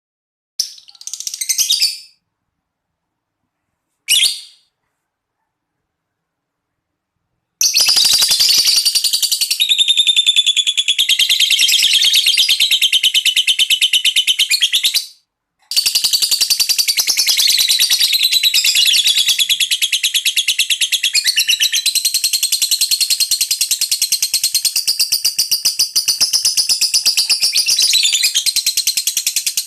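Caged songbird singing close up: two short phrases, then long unbroken runs of rapid, high-pitched chattering notes, with one brief pause about halfway.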